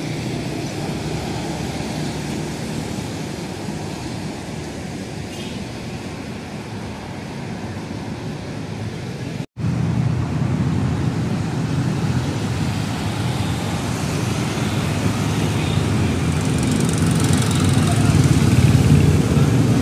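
Street traffic noise: motorcycles and cars passing on a wet road, with faint voices of people walking by. The sound cuts out briefly about nine and a half seconds in and comes back louder, rising toward the end.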